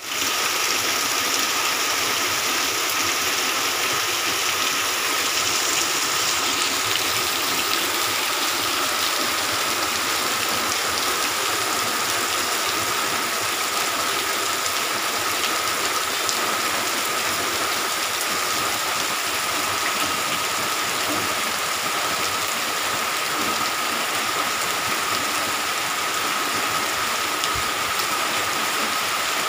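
Heavy monsoon rain pouring steadily onto a garden and paved yard: a dense, even hiss of falling water.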